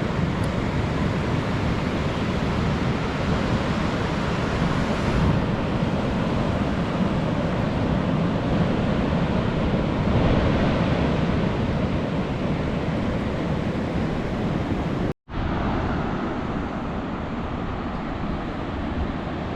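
Pacific Ocean surf: a steady, loud wash of waves with wind buffeting the microphone. The sound cuts out for a split second about fifteen seconds in, then carries on.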